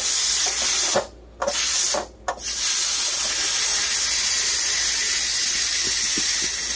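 Electric pressure cooker's steam release valve hissing steadily as the pressure is let out by hand (quick release after the rice has cooked). The hiss cuts out twice briefly, about a second and two seconds in, then runs on steadily.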